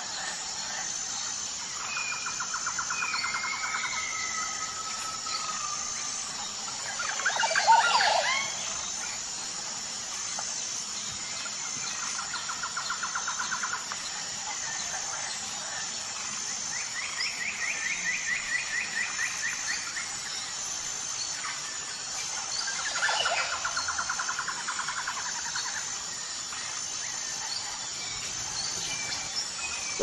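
Recorded nature ambience: birds trilling and calling in runs of a few seconds over steady high-pitched insect chirping. A louder bird call about eight seconds in, and another near twenty-three seconds.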